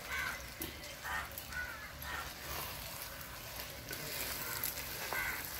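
Chicken masala frying faintly in a clay pot, with a low sizzle and soft scraping as a spatula stirs in the powdered spice. Faint voices are heard in the background.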